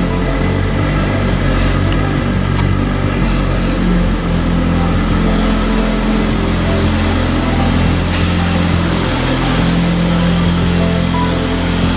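A car engine running with a deep, steady rumble.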